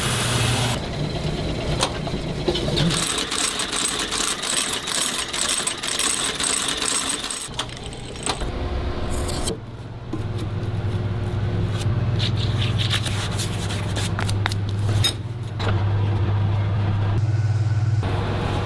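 Shoe-repair workshop machinery running with a steady low hum, with scraping and clicking from work on the shoe; the sound changes abruptly several times.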